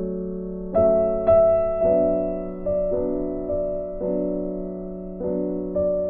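Background music: a slow piano tune, with notes struck roughly once a second and each fading away.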